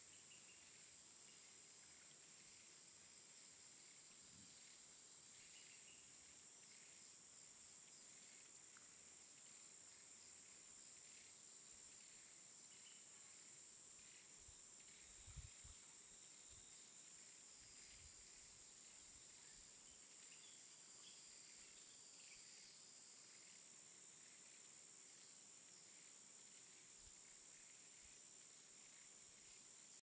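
Near silence: a faint steady high-pitched hiss with a few faint scattered chirps, and a soft low thump about halfway through.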